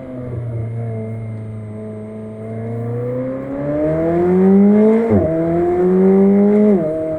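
McLaren 765LT's twin-turbo V8 accelerating: the revs sag, then climb hard and drop sharply twice, about five seconds in and near the end, as it shifts up through the gears.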